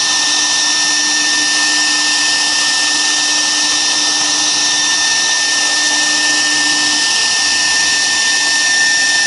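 Air-cooled spindle of a 1325 CNC router running steadily while engraving: a steady high whine over a fan-like hiss. A lower hum in the mix stops about seven seconds in.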